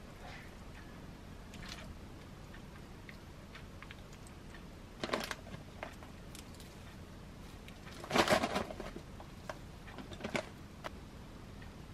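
Quiet kitchen food-handling sounds: a few short crinkles and rustles of a plastic zip bag as shredded cheese is pulled out and sprinkled onto the dish, loudest about eight seconds in.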